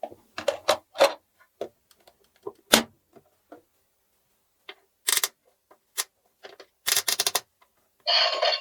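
Small plastic toy pieces being handled, making irregular sharp clicks and taps. There is a short scraping hiss near the end.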